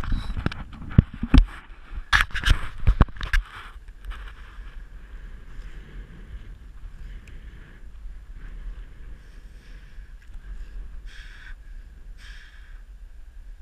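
Climbing rope and harness gear handled close to a head-mounted camera: a quick run of knocks, clacks and rubs for the first few seconds, then quieter rope rustling with two short swishes near the end as the rope is pulled through the hands.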